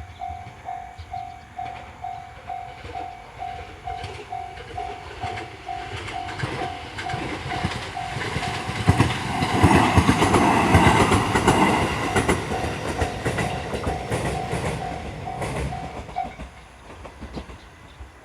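Japanese level crossing warning bell ringing in steady, evenly repeated dings while a train passes over the crossing. The train's rumble and wheel clatter build to their loudest midway, then fade. The bell stops shortly before the end, as the crossing clears.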